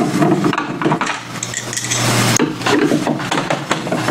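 Hand screwdriver working the screws out of the input panel on an LCD TV's plastic back cover: a busy run of small clicks, scrapes and clinks of metal tool and screws.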